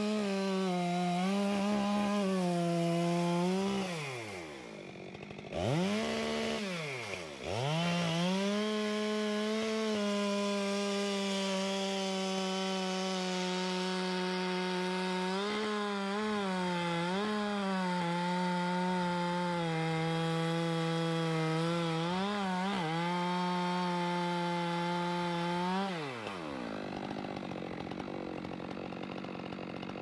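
Two-stroke chainsaw making a felling cut at the base of a large standing tree. It runs at full throttle in the wood, with the pitch sagging briefly several times under load. The saw drops back to idle about four seconds in and again near seven seconds, then revs back into the cut, and eases off to idle near the end.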